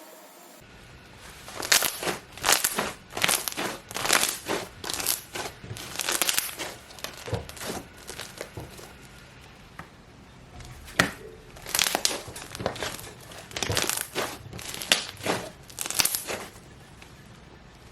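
Hands kneading and stretching puffed-up slime, making a run of crunchy crackling squishes about one or two a second, with a short lull about halfway through.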